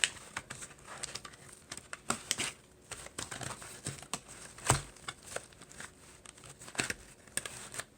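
Handling noise: scattered small clicks and rustling as things are picked up and moved, with one louder knock about five seconds in.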